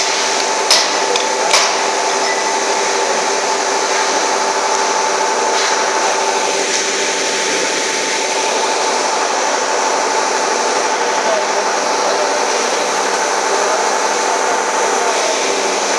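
Steady drone of shoe-sole moulding machinery, several held tones over a hiss, with three sharp metal clanks in the first two seconds as the metal sole moulds are handled.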